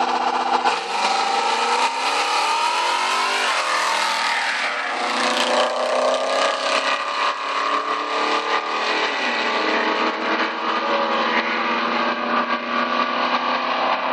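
Car engine accelerating hard under full throttle. The revs climb steeply from about a second in, break at a gear change near four seconds, then hold high.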